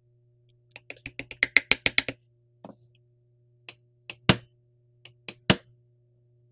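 A hammer tapping a cross pin into a rifle's trigger group: a quick run of about a dozen light taps, then a handful of harder separate strikes, the loudest near the end.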